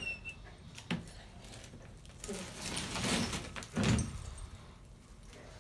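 A hound snuffling and sniffing hard with its nose in the dirt. There is one sharp knock about a second in, and a run of louder snuffling in the middle that peaks just before it dies down.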